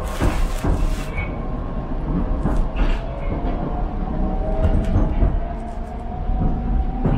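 Metro train carriage running between stations, heard from inside the car: a steady low rumble of wheels on rails, with a whine that rises slightly and irregular clattering knocks.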